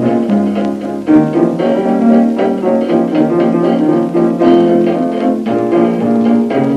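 Instrumental accompaniment music with piano and bowed strings over a plucked bass line.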